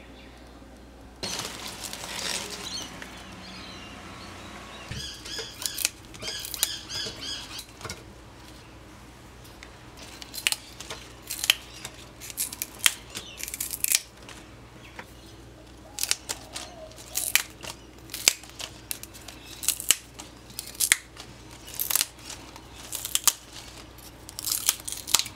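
Water spinach (kangkung) stems being broken into short lengths by hand over a stainless steel colander: short, crisp snaps about once a second, with rustling of the leaves.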